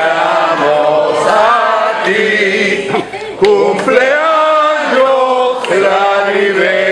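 A roomful of men and women singing a song together, one woman's voice nearest and loudest.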